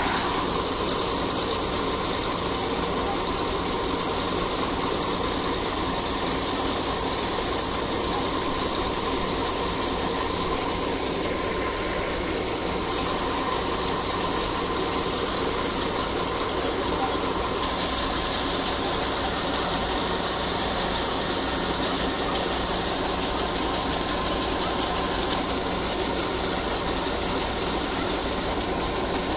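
Bizon Z056 combine harvester running steadily, engine and threshing machinery under load, while its unloading auger pours grain into a tarp-lined trailer. The falling grain adds a hiss that grows louder about halfway through.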